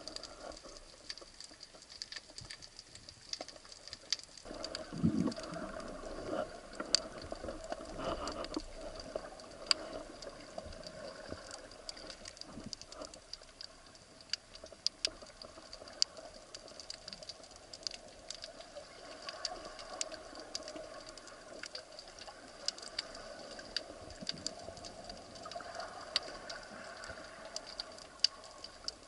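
Underwater reef ambience picked up by a camera below the surface: scattered sharp clicks and crackles, joined about four seconds in by a steady low hum.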